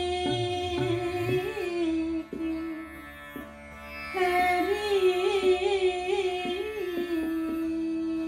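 A woman singing Indian classical vocal over a plucked tanpura drone. She holds a long steady note, dips briefly a little after two seconds in, then comes back with wavering ornamental turns around the note. Soft tanpura plucks sound throughout.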